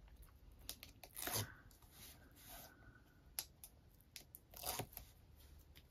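Faint paper rustling, scratching and small clicks as backing paper is picked and peeled off adhesive strips on a papercraft shaker-card frame with metal tweezers. The rustles come in short bursts, one about a second in and another near the end, with scattered ticks between.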